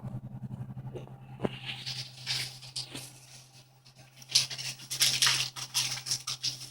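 A cat scratching and rustling while playing, in scratchy bursts about two seconds in and again from about four and a half seconds, over a steady low hum.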